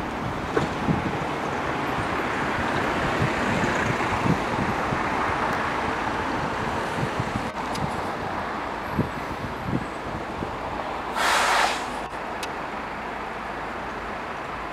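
Steady road traffic noise from the town, with wind bumping on the microphone and a short loud hiss about eleven seconds in.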